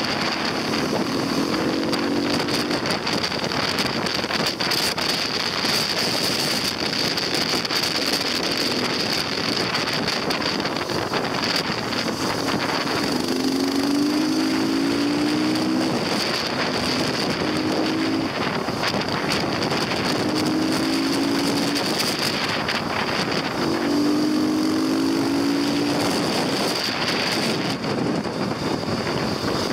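Heavy wind rush on the microphone of a moving motorcycle, with a steady high whine. Under it the motorcycle engine's note rises in pitch several times as the bike accelerates.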